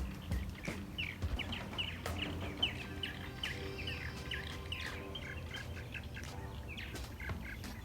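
Birds chirping in a quick series of short, falling calls, several a second, with faint music underneath.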